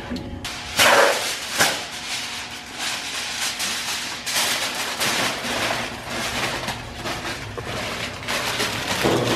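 Sheet of aluminium foil being pulled off, torn and crumpled by hand: a sharp burst of noise about a second in, then a run of irregular crinkling and rustling.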